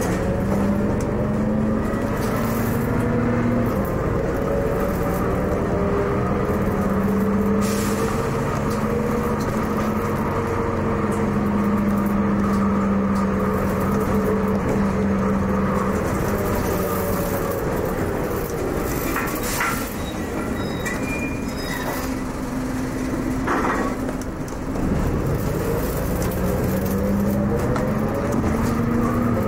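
MCW Metrobus double-decker's Cummins diesel engine running as the bus drives along, its note rising and falling in pitch with a short dip about 25 seconds in, plus occasional rattles and brief squeaks.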